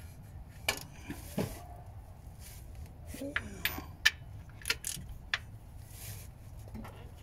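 A dozen or so light, sharp clicks and clinks scattered irregularly, the sound of small hard objects being handled.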